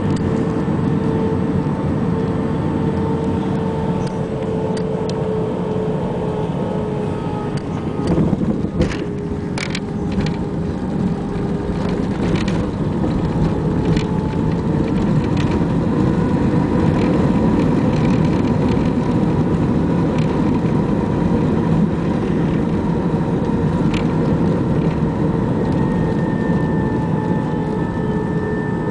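Airbus A320 jet engines and rushing air, a steady loud noise with a constant humming tone through it. A few sharp knocks come about eight to ten seconds in, and the noise then swells a little louder.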